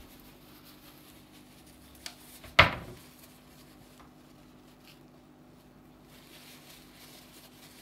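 A single sharp knock about two and a half seconds in, with a lighter click just before it, against a faint steady hum.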